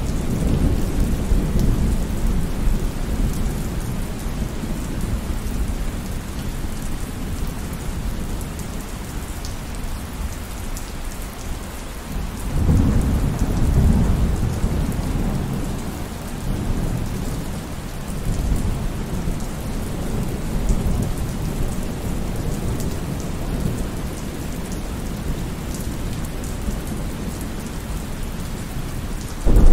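Steady heavy rain with rolling thunder. A deep rumble of thunder swells suddenly about halfway through and rolls on for several seconds, with smaller rumbles after it. Another rumble breaks in right at the end.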